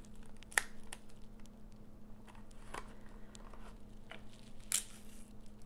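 Folded cardstock being handled and taped by hand: scattered light paper rustles, taps and clicks, with a faint steady hum underneath.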